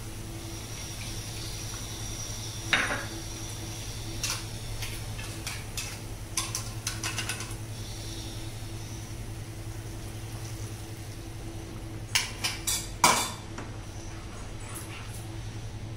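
Spatula and utensils clacking and scraping against a nonstick kadhai as thick gravy is worked and watered down: a few separate clacks, then quick clusters around 6–7 s and 12–13 s, the loudest about 13 s in, over a steady low hum.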